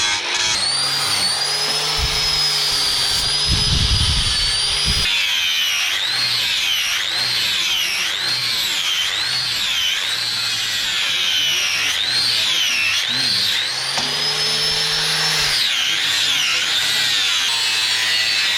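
High-speed electric power tool running with a high whine that repeatedly sags and recovers, as it does when the tool is pressed into work and eased off. A low rumble joins it for a few seconds near the start.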